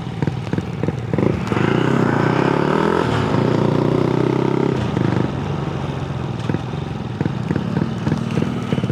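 Honda Grom's 125 cc single-cylinder engine running under way, pulling strongly with a steady tone for a few seconds, then easing off about five seconds in.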